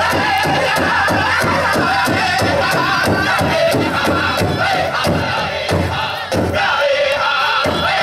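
Pow-wow drum group playing a contest song: several singers strike a big drum together in a fast, steady beat while singing high-pitched, wavering vocables.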